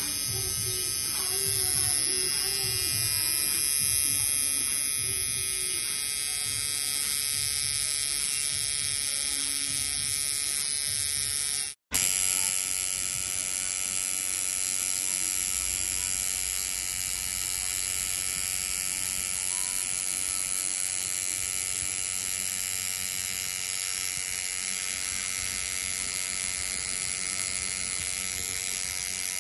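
Coil tattoo machine buzzing steadily as its needle packs red ink into the skin, with a brief gap about twelve seconds in.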